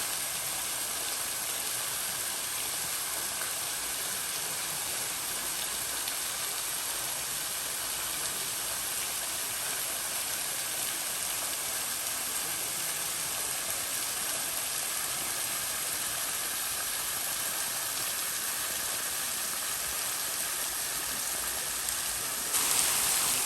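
Rushing water of a waterfall, a steady even roar that grows louder and brighter about a second before the end.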